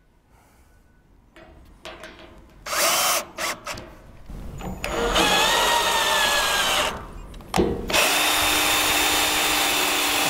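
Cordless drill driving lag screws through an aluminum L-clip into the deck: a short burst with the motor spinning up about three seconds in, then two longer steady runs, the second lasting to the end.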